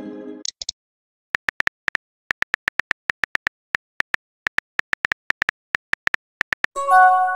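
Phone-keyboard typing clicks from a texting app, a quick irregular run of short ticks, several a second, as a message is typed out. A short bright chime of a few tones rings near the end, the app's message-sent sound.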